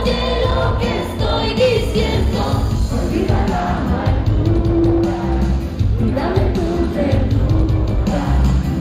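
Anime opening song sung live by the performers into microphones over pop-rock accompaniment, amplified through the hall's PA.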